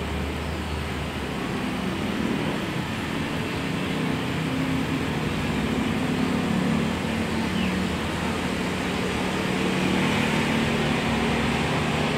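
Steady road traffic noise, with a low steady mechanical hum that comes in about two seconds in.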